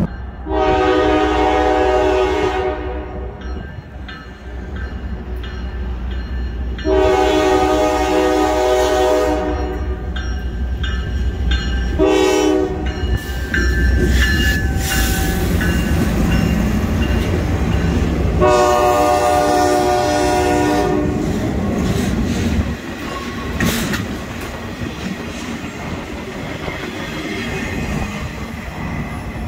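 Norfolk Southern freight locomotive's horn blowing the grade-crossing signal, two long blasts, a short one and a final long one, as the train passes close by. After the horn, freight car wheels clatter and rumble over the rails as the flatcars roll past.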